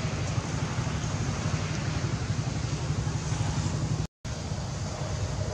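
Steady low background rumble with a hiss above it, broken by a short dropout about four seconds in.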